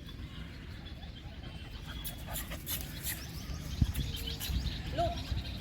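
Siberian husky puppies playing on grass, with scattered scuffs and rustles and one sharp thump just before four seconds in.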